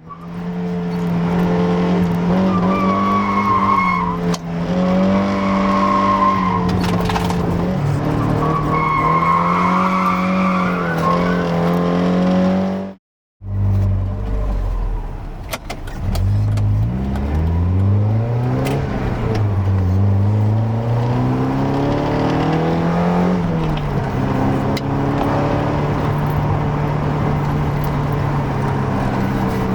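Mazda MX-5 NA Miata's 1.6-litre four-cylinder engine, with a K&N air filter and near-stock exhaust, running at fairly steady revs with a higher wavering squeal over it. After a brief break about 13 seconds in, it revs up and falls back several times, as through gear changes, then settles to steady revs.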